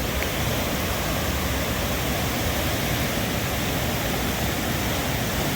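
Swollen river after heavy rain, its water rushing loudly and steadily.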